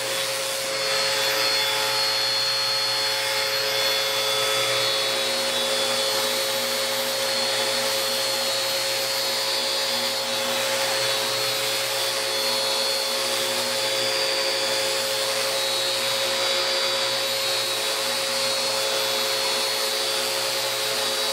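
Two-speed random orbital sander running steadily while sanding a wooden board: a continuous whirring hiss with a steady whine.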